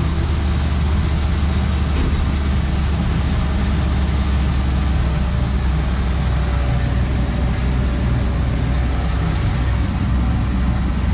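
Tractor-trailer truck on the move: steady engine drone and road noise with a constant low hum.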